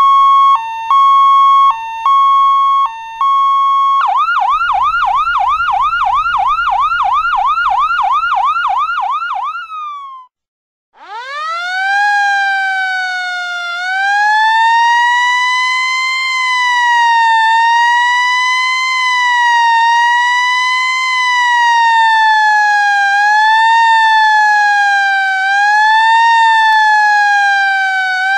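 Police siren sound effects in three patterns. First a steady tone broken by short gaps, then a fast yelp of quick rising sweeps, about three a second. After a brief silence the siren winds up from low and settles into a slow wail that rises and falls every couple of seconds.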